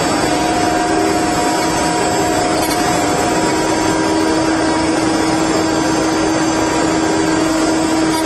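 Multi-spindle 4-axis rotary CNC wood router running, its spindles giving a steady whine at a few fixed pitches over continuous cutting noise as the bits carve wooden figures.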